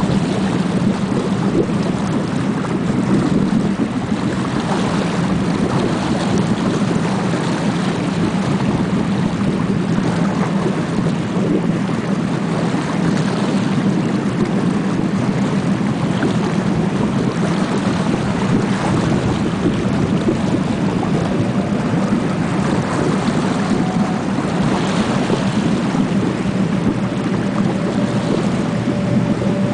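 Boat engine running steadily with a low drone over rushing river water and wind buffeting the microphone. A faint higher engine note comes in near the end as a second boat approaches.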